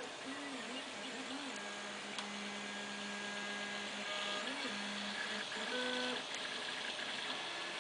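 Home-built H-bot 3D printer running on NEMA23 stepper motors. The steppers whine in pitched tones that glide up and down as the moves speed up and slow down, with one long steady tone for a few seconds in the middle, over a steady hiss.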